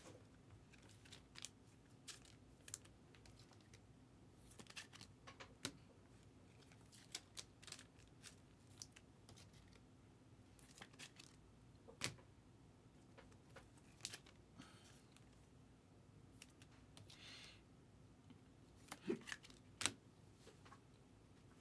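Faint, scattered clicks, taps and brief rustles of trading cards and foil pack wrappers being handled, with the loudest few clicks near the end.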